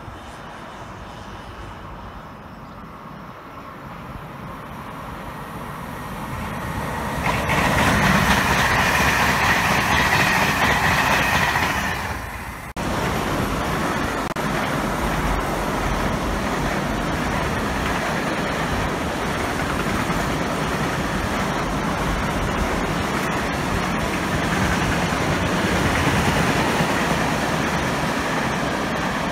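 Container freight train passing on electrified main line: the locomotive grows louder as it approaches and is loudest about eight to twelve seconds in, then a long string of loaded container wagons rolls by with a steady rumble.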